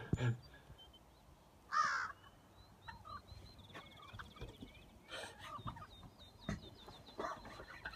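Wild turkeys calling with a few short clucks; the loudest call comes about two seconds in. A small bird's thin, fast run of high repeated notes sounds behind them through the second half.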